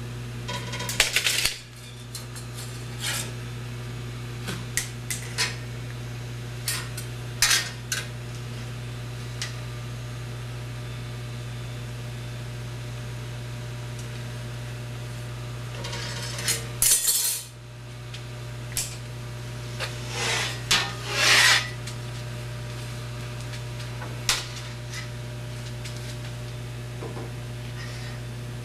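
Scattered metal clanks and rattles of tools and parts being handled, with a few longer scraping bursts, over a steady low hum.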